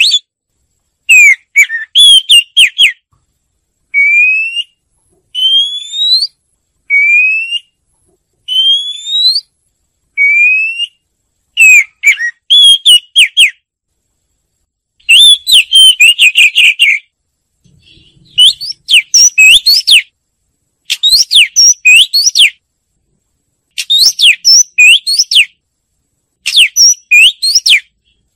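Oriental magpie-robin singing: short phrases of quick, varied whistled notes separated by brief pauses, with a run of single clear whistles, each rising in pitch, between about 4 and 11 seconds in.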